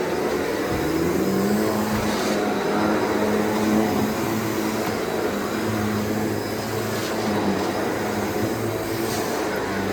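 Shark NZ780UKT corded vacuum cleaner running steadily over a rug and carpet. Its motor hum wavers a little in pitch as it is pushed back and forth.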